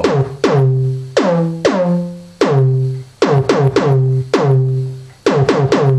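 Synthesized kick-drum/bass patch on a software synthesizer played as a series of notes: each hit starts with a quick downward pitch drop and settles into a sustained, tube-distorted low tone. Several notes come singly, others in quick runs of three or four, at slightly different pitches.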